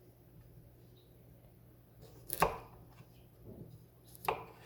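Knife chopping peeled ginger into small pieces: a few separate sharp chops, one about halfway in, a fainter one after it, and another near the end.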